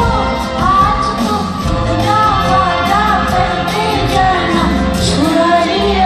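Live Bollywood song: a female singer's ornamented, wavering melody over a band with drums, percussion and keyboards, recorded from far back in the arena audience.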